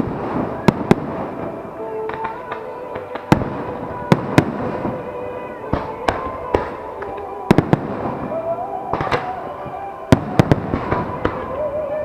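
Aerial fireworks bursting over the sea: about fifteen sharp bangs, several in quick pairs, over continuous crackling. Music plays underneath.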